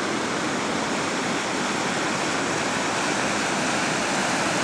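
Floodwater from an overflowing pond rushing through culverts under a road and spilling across it: a steady, loud roar of running water.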